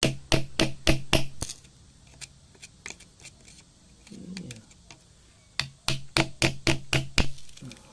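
Rapid, sharp clicks or taps in two runs, one at the start and one from about the middle to near the end, over a steady low hum.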